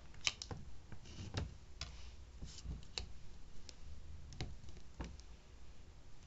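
Scattered light clicks and ticks with a few short scrapes, from a plastic scraper and a rubber stamper being worked over a metal nail-stamping plate.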